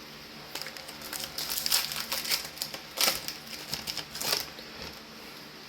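Trading cards being handled, giving a run of short crinkling and rustling sounds from about half a second in, loudest about three seconds in, dying away before the end.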